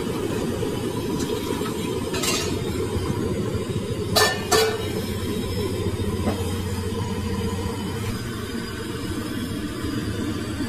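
Steady low mechanical rumble, with a couple of quick sharp metal clinks of steel utensils about four seconds in and a fainter one about two seconds in.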